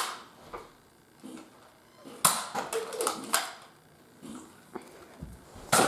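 Nerf foam-dart blaster firing three sharp shots: two about a second apart, then a third near the end, with a few quieter knocks between.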